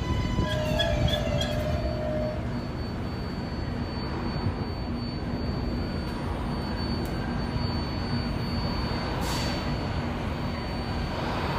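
A New York City 7 line subway train running past on elevated track: a steady rumble of wheels on rail with a thin, steady high whine. A brief wavering squeal sounds in the first two seconds.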